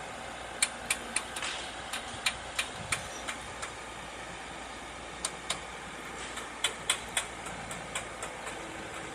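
A building site: an engine runs steadily in the background while sharp, irregular clinks and knocks of hard material being worked come in clusters, a few close together and then a pause of about a second and a half near the middle.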